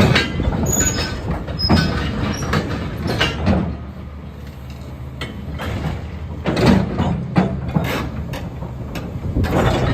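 Caterpillar 325C excavator at work: its diesel engine drones steadily while metal clanks, knocks and brief high squeals come from the machine's moving steel parts, the loudness rising and falling.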